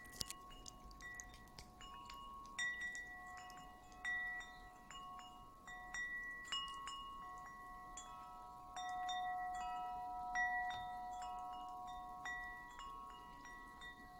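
Wind chime ringing: several different tones struck at irregular moments, overlapping as each one rings on.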